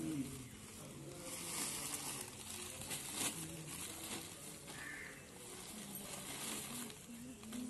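A plastic sack crinkling and rustling as it is handled, with a few sharper rustles among the quieter ones. Faint voices sound in the background.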